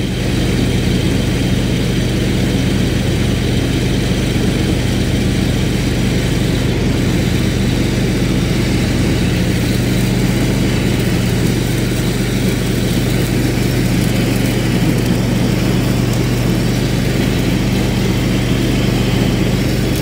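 A car engine idling steadily at an even low pitch.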